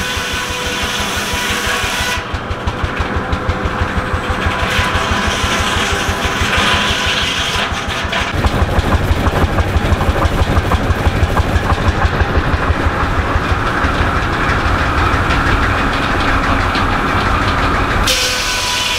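Rumely OilPull tractor engine running a sawmill, with a steady, even exhaust beat. The beat gets louder and heavier about eight seconds in.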